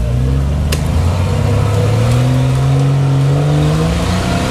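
Jeep Wrangler engine revving under load as it climbs a steep, rocky dirt hill, its pitch rising over a couple of seconds and then holding. A single sharp click sounds under a second in.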